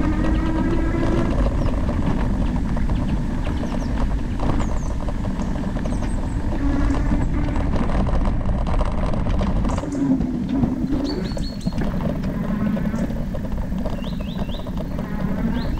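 E-bike riding on a dirt trail: a steady low rumble of tyres and wind on the microphone, with the electric motor's whine rising in pitch at the start and coming back briefly twice more. Birds chirp a few times, mostly near the end.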